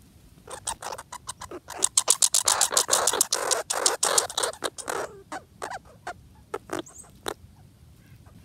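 Red squirrel rummaging and crunching through bird seed in snow at the microphone: a run of rapid, crackly scratches and clicks, densest in the middle, thinning to a few scattered clicks near the end.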